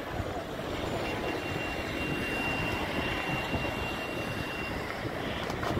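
Steady rumble of road traffic from an adjacent city street, with a thin, high whine held for about four seconds in the middle.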